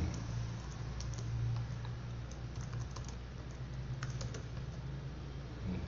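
Computer keyboard being typed on: sparse, scattered keystrokes over a steady low hum.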